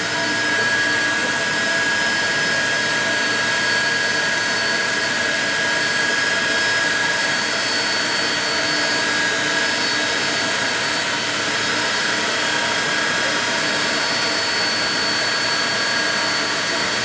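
Jet engines of an Aeromexico airliner taxiing in to the gate: a loud, steady whine with high, even whistling tones over a rush of noise.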